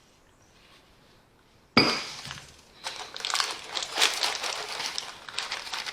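Kitchen clatter: one sharp knock about two seconds in, then about three seconds of quick clinking and scraping as the cake batter in the tin is levelled.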